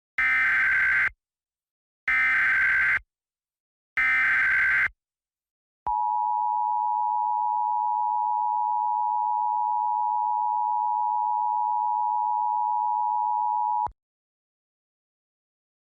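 Emergency Alert System tones: three short buzzing bursts of SAME header data about two seconds apart, then a steady attention tone lasting about eight seconds that cuts off suddenly.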